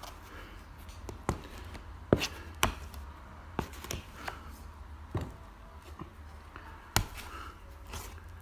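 Irregular sharp taps and clicks of plastering tools working cornice cement up into a crack in a fibrous plaster ceiling, about a dozen knocks at uneven spacing, the loudest about two seconds in and again near seven seconds.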